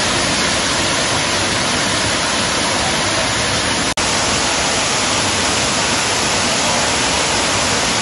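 Waterfall pouring over rock ledges into a pool: a loud, steady rush of water. It cuts out for an instant about four seconds in.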